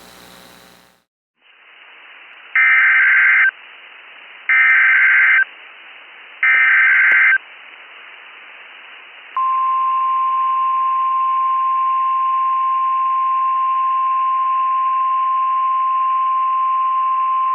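NOAA Weather Radio alert sequence over faint radio hiss. Three one-second bursts of SAME digital header data come about two seconds apart. About two seconds after the last, the single steady 1050 Hz warning alarm tone comes on and holds. Together they mark the start of a new alert broadcast.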